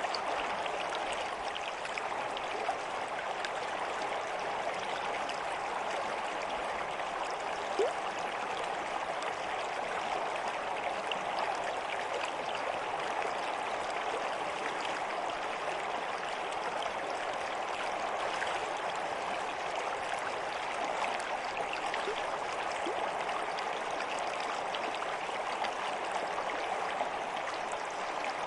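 Stream water running steadily, with small gurgles and plops now and then.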